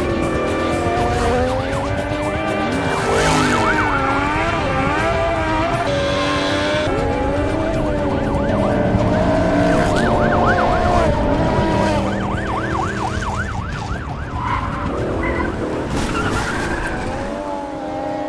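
Car engines revving hard and tyres squealing and skidding during drifting and burnouts, the engine pitch rising and falling throughout.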